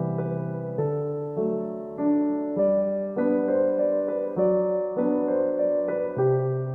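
Background music: a gentle electric piano tune with a steady bass line.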